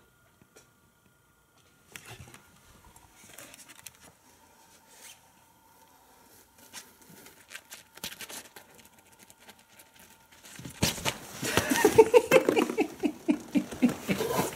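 Cats scrambling about a nylon pop-up play tent: rapid pattering of paws and rustling of the fabric, faint through the middle and turning loud and fast for the last few seconds.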